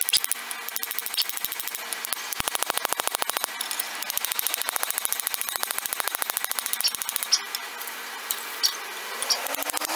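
Rapid light hammer taps, about seven or eight a second, peening the end of a 1/8-inch brass pin with a hammer of about 6 ounces on a makeshift anvil, with a few brief high pings among the strokes.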